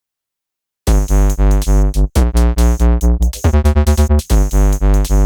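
Electronic background music with a heavy, pulsing synth bass beat, starting after a moment of silence and briefly dropping out twice.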